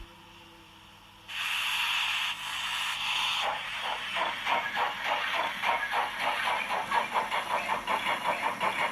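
Steam locomotive sound from a model BR 50's sound decoder, played through its small loudspeakers. A steam hiss starts about a second in, and after a couple of seconds it gives way to a steady, regular chuffing rhythm as the engine sets off.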